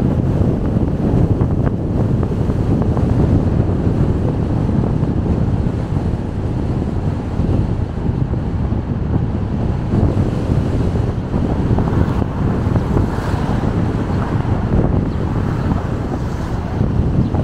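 Steady road and wind noise from a car driving: a continuous, mostly low-pitched noise with no distinct events.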